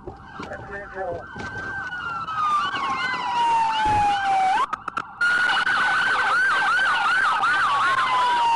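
Police car sirens: one wails in a slow fall and sharp rise while another cycles in quicker sweeps over it. They come in about a second in, with a brief dropout about five seconds in.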